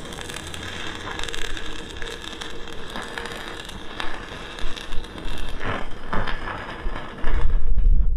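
Electric arc welding on a broken shock absorber, crackling steadily. Near the end the crackle stops and a loud low rumble takes over.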